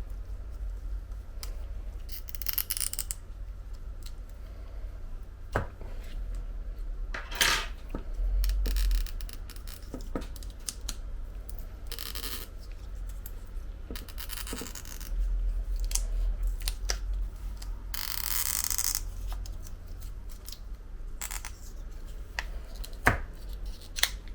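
Adhesive pull tab being stretched and drawn out from under an iPhone 11 Pro Max battery: scattered small scratches, rubs and clicks of the tab and fingers against the phone's frame, over a low steady hum.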